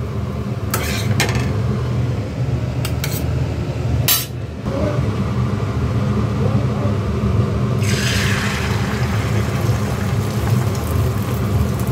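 Oil sizzling in a frying pan as egg is fried, under a steady low rumble. A few metal clinks of a spatula on the pan come in the first few seconds, and the sizzle swells about eight seconds in as egg goes into the hot oil.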